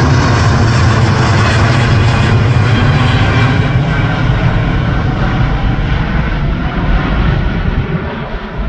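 Jet airliner passing low overhead on approach to land, with a loud engine and air-rush noise that slowly fades as it moves away, losing its upper hiss first.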